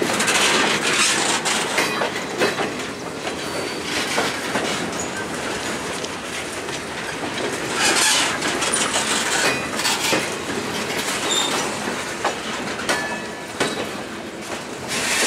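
Empty TTX flatcars of a freight train rolling past close by: a steady rattle of steel wheels on the rails with repeated clicks as the wheels cross rail joints. Brief thin squeals come from the wheels now and then, and the sound swells briefly about eight seconds in.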